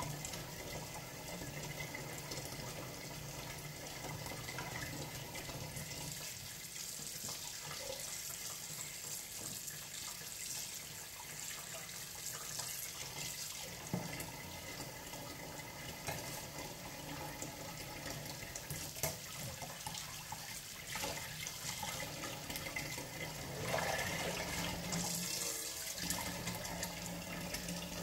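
Kitchen tap running into a sink while a milkfish is rinsed and cleaned under it, with a few light knocks and a louder spell of splashing about three-quarters of the way through.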